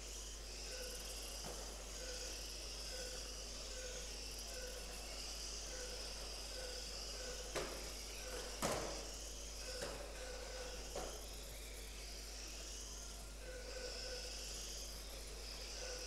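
Small electric radio-controlled cars racing, their motors giving a faint high whine that rises and falls as they speed up and slow down, with a couple of sharp knocks about halfway through.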